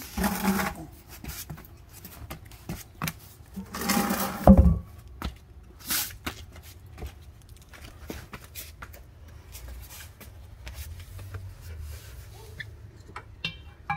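Handling noises of a spare tire and its metal holder: scattered clicks, scrapes and knocks, with one heavy thump about four and a half seconds in.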